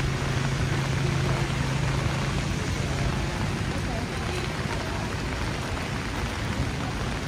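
Steady rain falling on a city street, an even hiss, with the low hum of a vehicle engine in traffic that stops about two seconds in.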